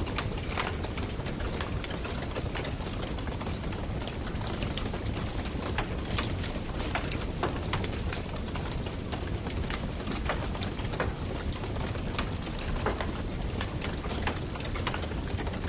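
Wood campfire burning: a steady low rumble and hiss of flames with frequent sharp crackles and pops of burning wood.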